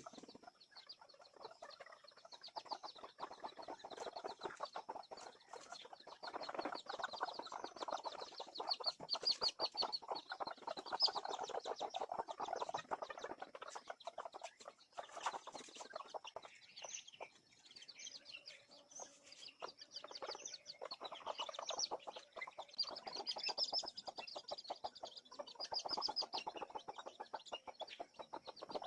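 Chickens in a coop clucking, with the high, wavering peeps of chicks over them and many small clicks throughout.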